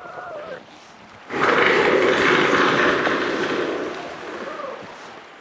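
A seal's loud, harsh roar lasting about two and a half seconds, starting just over a second in and fading away, after a short gliding call.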